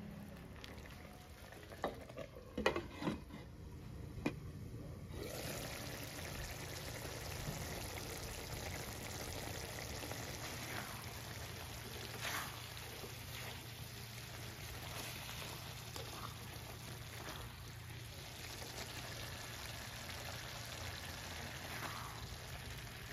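Pork belly in a thickening sauce sizzling in a pan, stirred with a silicone spatula. A few spatula scrapes and knocks come in the first seconds, then a steady sizzle sets in about five seconds in, with an occasional scrape of the spatula.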